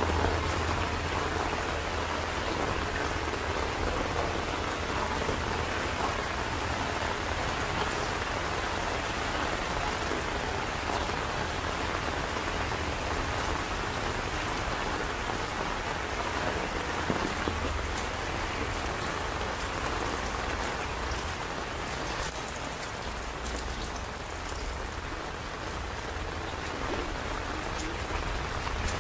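Steady rain falling on a waterlogged alley's puddles and scattered plastic litter.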